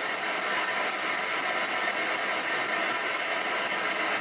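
Ghost box radio sweeping through the band in reverse, giving a steady hiss of static.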